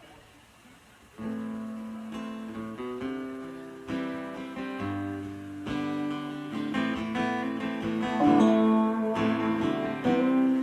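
Acoustic guitar strumming chords as a song's instrumental intro, starting about a second in. Lower notes join about halfway through.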